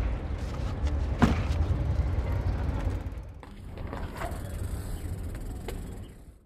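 Outdoor street ambience with a steady low rumble and a sharp knock about a second in. After about three and a half seconds it drops to a quieter hiss with a few faint ticks, then fades out at the end.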